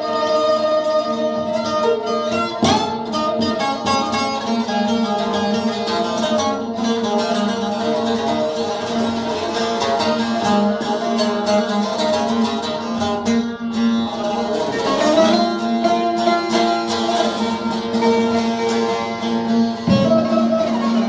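Music played on a plucked string instrument, with a steady held low note under the melody.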